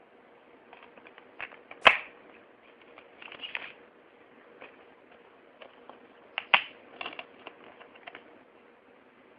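A DVD case and its packaging being handled: scattered plastic clicks and a brief rustle, with two sharp snaps, one about two seconds in and one about six and a half seconds in.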